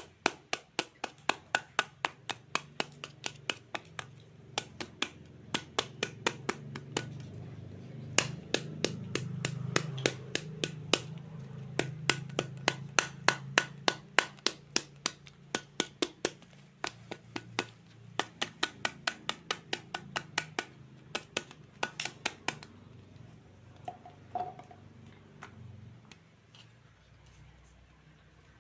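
Rapid, regular sharp taps of a toy knife chopping through toy fruit onto a cutting board, about three a second, thinning out and fading after about twenty-two seconds.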